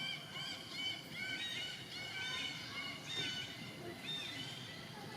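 Many short, high-pitched arching chirps and squeaks overlapping, repeated throughout: animal calls, typical of a troop of young monkeys or birds calling.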